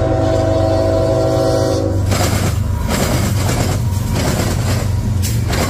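A CSX diesel locomotive's horn sounds a steady chord for about the first two seconds over the low rumble of its engine. Then the locomotive passes close, its engine rumbling and its wheels pounding across the railroad diamond crossing in repeated sharp bangs.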